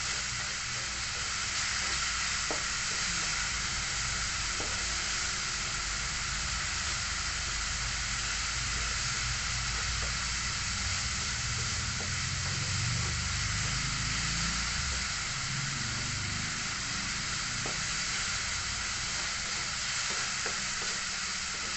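Ground spice paste with ginger and turmeric sizzling in a little oil in a wok: a steady frying hiss, with a few light knocks as it is stirred. The paste is being sautéed until fragrant.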